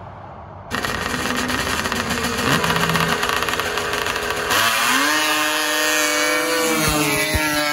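Racing snowmobile engines at a drag-race start line, then two sleds launching about halfway through: the engine pitch climbs quickly and holds at a high, steady whine as they accelerate away.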